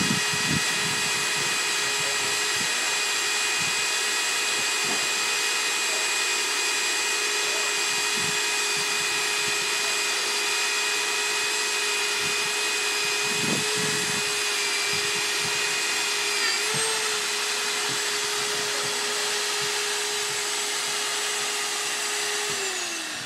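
Stand-mounted electric diamond core drill running steadily under load as it bores a core out of a concrete specimen, a continuous high whine. Its pitch wavers briefly about two-thirds of the way through, and near the end the motor starts to wind down, pitch and loudness falling.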